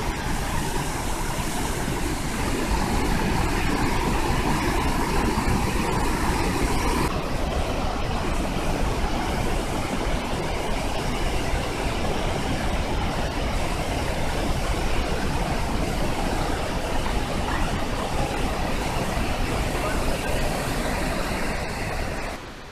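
Large waterfall in heavy flow heard at close range: a loud, steady rush of falling and churning water. It fades out near the end.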